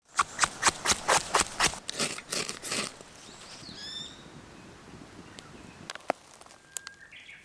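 About a dozen quick crunching footsteps in the first three seconds. Then a short bird call at about four seconds, and a few faint ticks.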